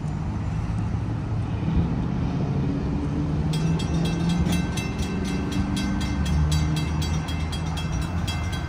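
Railroad crossing warning bell starts ringing about three and a half seconds in, a steady repeated clanging that marks the crossing signals activating for an approaching train. Underneath is a continuous low engine rumble.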